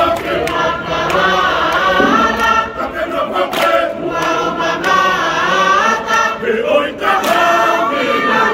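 Tongan mixed choir of men and women singing together to accompany a seated group dance, with a few sharp smacks over the singing.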